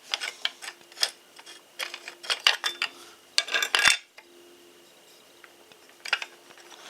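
Light metallic clicks and clinks of a grinding disc and the angle grinder's parts being handled and fitted onto the spindle, in quick clusters over the first four seconds, then a pause, then more near the end.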